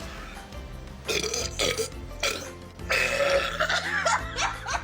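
A person burping loudly after gulping down carbonated Sprite: one burp about a second in, a short one just after two seconds, and a long one from about three seconds in that lasts over a second.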